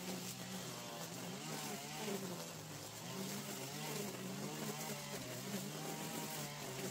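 Two string trimmers running together, cutting through long grass, their engine pitch wavering up and down as the line bogs and frees in the growth.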